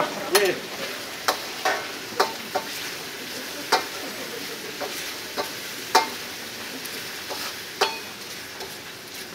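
Metal ladle stirring a starch-thickened sauce in a wok, clinking and scraping sharply against the pan about once a second over a steady sizzle.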